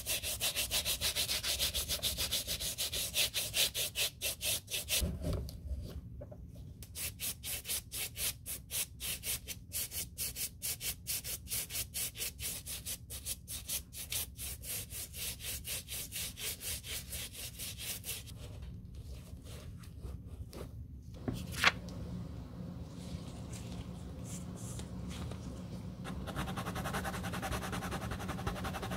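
Brushes scrubbing soapy lather over a white leather sneaker in quick, rhythmic back-and-forth strokes, with one sharp knock a little past the middle. Near the end, a finer rubbing as a small abrasive pad works a scuff on the toe leather.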